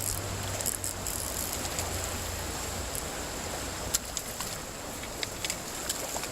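Creek water running steadily, with a low hum during the first half and a few light clicks scattered through.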